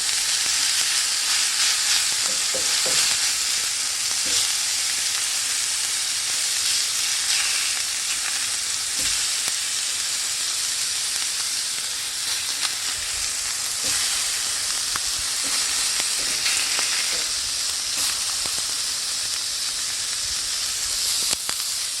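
Hamburger patties sizzling steadily in a skillet, with the odd faint pop.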